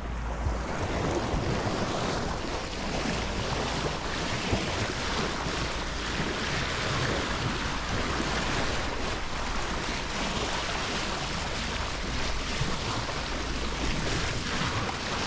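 Bow wave of a sailboat hull, water rushing and splashing steadily along the side as the boat moves through open-sea swell, with wind buffeting the microphone.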